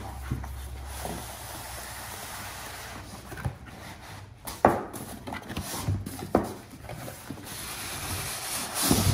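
Cardboard packaging and a polystyrene foam insert rubbing and scraping as the foam case is slid out of the box, with a few sharp knocks of handling against the wooden table.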